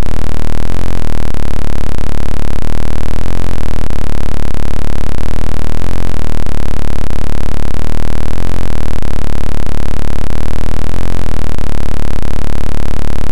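Loud, dense synthesizer music: sustained chords in a short pattern that loops about every two and a half seconds.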